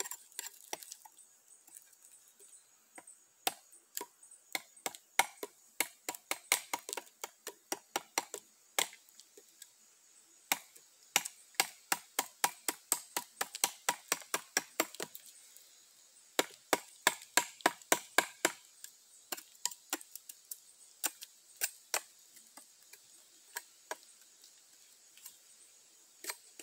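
Timber Wolf ClaimStaker bowie knife blade (3Cr13 stainless clip point) shaving and chopping bark and wood off a small stick to carve a stake point: quick repeated strokes, each a sharp click, several a second, in runs broken by brief pauses, the blade peeling the bark off easily.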